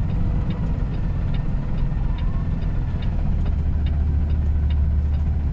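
Heavy rock-hauling truck's diesel engine running at low speed, heard from inside the cab as a steady low drone, with a light regular ticking about twice a second.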